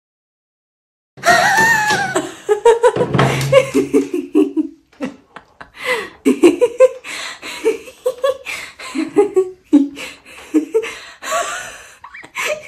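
Laughter in a long string of short bursts, starting about a second in after a moment of silence.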